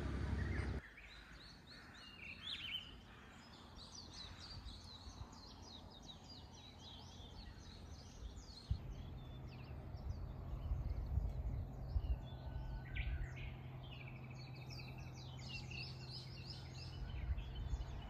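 Small songbirds chirping and singing, a steady stream of short high calls and trills. A low steady hum sits underneath from about halfway through.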